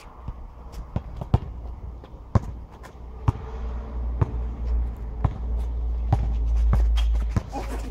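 A basketball being dribbled on an asphalt court: sharp separate bounces about once a second, coming quicker near the end as the player drives to the basket. Under them a steady low rumble of wind on the microphone grows louder in the second half.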